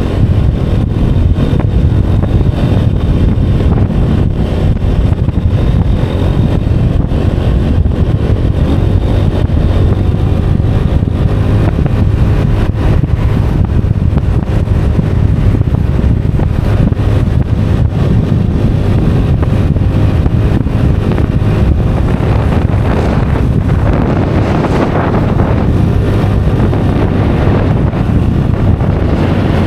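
Honda scooter's engine running steadily at riding speed, mixed with heavy wind rush on the microphone. The wind noise grows stronger over the last few seconds.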